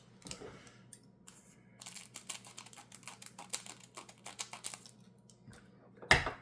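Foil booster pack wrapper being handled and pried open: a run of small crinkles and clicks, with one loud crackle about six seconds in.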